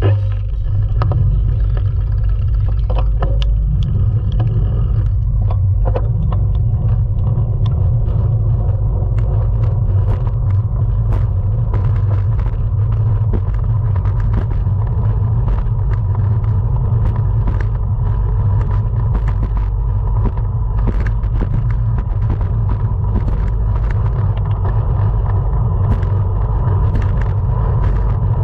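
Heavy wind rumble on the microphone of a bicycle-mounted camera, from a road bike ridden at race speed. Under it runs a faint steady high whine that grows stronger in the second half, with scattered small clicks and ticks.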